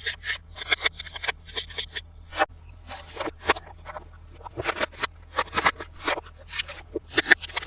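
Hands unpacking and handling a plastic toy set and its packaging: irregular short crinkles, scrapes and clicks, a dense run at first, then scattered clusters with short gaps between them.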